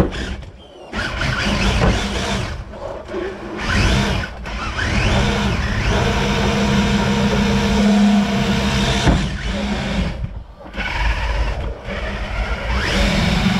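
Traxxas TRX-4 RC crawler's electric motor and geartrain whining as it drives, the pitch rising as the throttle comes on about five seconds in and again near the end. The whine drops away briefly twice when the throttle is let off.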